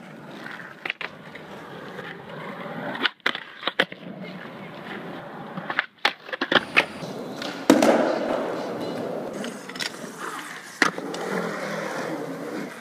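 Skateboard wheels rolling over concrete, broken by several sharp clacks of the board striking the ground. The loudest clack comes about eight seconds in and is followed by louder rolling.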